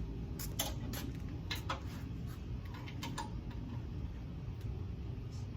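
A few short, light clicks and knocks of metal parts, mostly in the first two seconds, over a steady low rumble.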